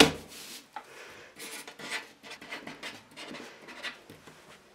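Paper card put down on a plywood board with a brief slap, then a marker pen scratching across the card in a run of short, quick strokes as a title is written, stopping a little past four seconds in.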